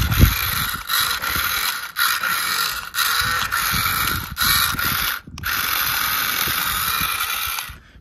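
Electric motor and gearbox of a remote-control Swaraj 855 FE model tractor whirring as it drives. It runs in short bursts of about a second with brief stops, then in one longer run that cuts off near the end.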